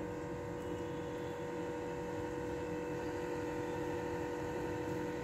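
Steady electrical hum: one constant tone with its overtones, holding level with no other sound standing out.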